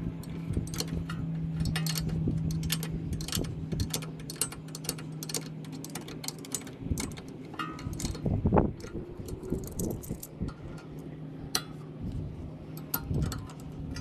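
Rapid, irregular metallic clicking and clinking of hand tools on a rear brake caliper as its bolts are tightened with a ratchet and wrench, with a louder clunk about eight and a half seconds in. A steady low hum runs underneath.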